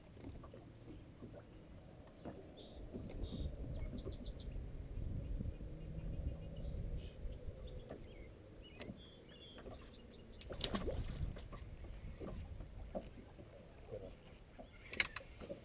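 Water sloshing against a bass boat's hull, heard as a low rumbling noise that swells for several seconds, dies back, and swells again briefly. Near the end comes a quick cluster of sharp clicks and knocks as the rod is swept back to set the hook.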